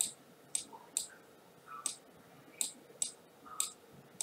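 Computer mouse clicking: about eight short, sharp clicks at uneven intervals.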